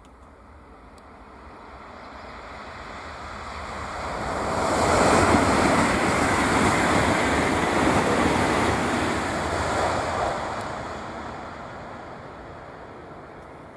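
Frecciarossa 1000 high-speed electric train passing at speed. The noise grows over about five seconds, holds at its loudest for several seconds, then fades away as the train recedes.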